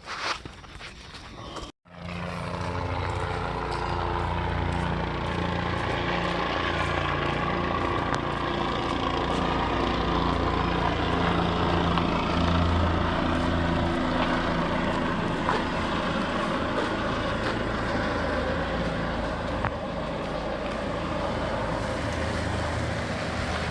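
Helicopter flying, a steady engine and rotor noise that runs on without break from a cut about two seconds in.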